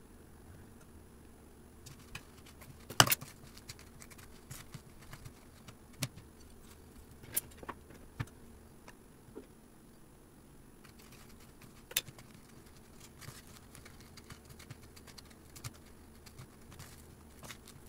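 Wooden chopsticks and fingers knocking and clicking against plastic food tubs while a roll is turned in beaten egg and coated in breadcrumbs, in scattered faint clicks with a louder double knock about three seconds in. Near the end, many small ticks and rustles as the roll is pressed into the breadcrumbs by hand.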